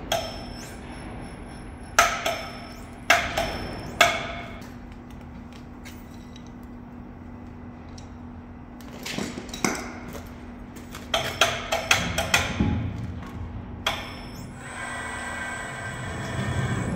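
Sharp metal clanks and knocks, several with a short ringing tail, from handling a large steel hydraulic cylinder barrel as it is taken out of a lathe, over background music. A quick cluster of knocks comes about 11 to 12 seconds in, and a steady rushing noise starts near the end.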